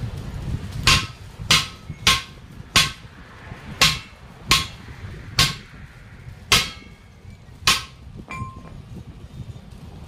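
Hammer blows on the steel rim of a truck wheel lying flat on the ground, about nine of them at uneven gaps of roughly a second, each giving a sharp metallic clang with a brief ring. The last blow is lighter. This is the work of loosening the tyre from the rim.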